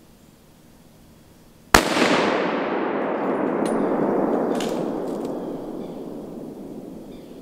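A single gunshot in the woods, a sharp crack about two seconds in followed by a long echoing rumble that fades over about five seconds.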